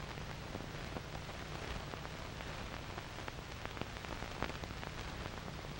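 Background hiss and crackle of an old film soundtrack, with scattered clicks and a steady low hum.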